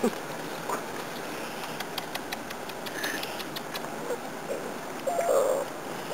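Whippet puppies playing in and around a fabric play tunnel: faint scattered clicks and rustling, then a short puppy yelp about five seconds in.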